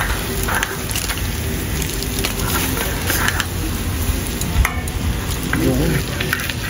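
Foil-wrapped fish sizzling and crackling over a charcoal grill, with tongs clicking and scraping against the foil and grate a few times. The popping is taken as the sign that the fish is cooking.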